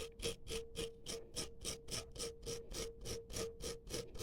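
Wire brush scrubbing a lawnmower spark plug with quick, even back-and-forth strokes, about four or five a second, cleaning off the dirt that fouled the plug and stopped the engine.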